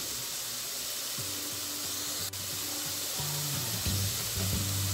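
Chopped garlic and onion sizzling steadily in olive oil in a pan, with soft background music coming in about a second in.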